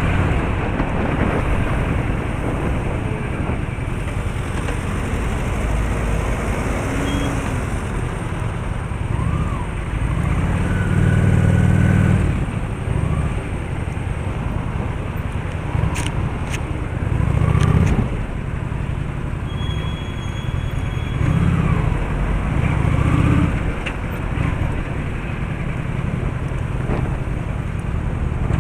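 Road traffic noise: car engines and tyres running steadily, with several louder swells as vehicles go by.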